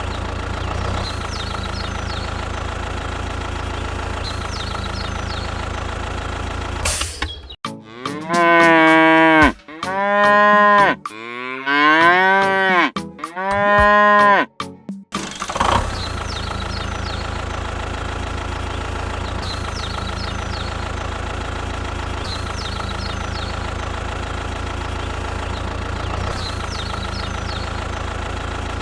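A steady engine drone, interrupted about a third of the way in by a run of about four long, loud cattle moos, after which the drone returns unchanged.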